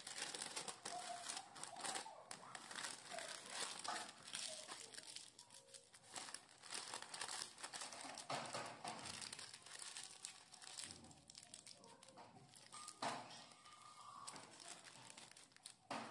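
Soft, irregular crinkling and rustling of baking parchment paper as hands fold and press it into a parcel.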